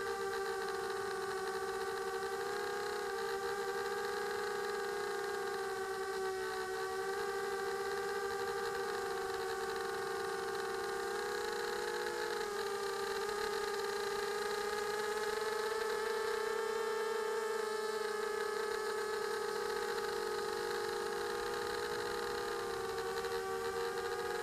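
Electric motors and propellers of a small camera-carrying RC aircraft whining steadily in flight, heard from the onboard camera; the pitch shifts a little as the throttle changes, around the middle of the flight.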